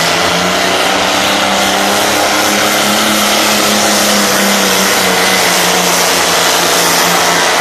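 Turbocharged diesel pulling-tractor engine run flat out at steady high revs under full load as it drags a sled, with a thin steady high whine above the engine note.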